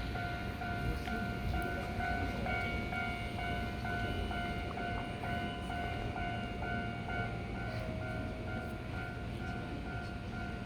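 Japanese level-crossing warning bell ringing in a steady, evenly repeating electronic ding, over the low rumble of Keihan trains running past. A second, slightly lower warning tone joins in near the end.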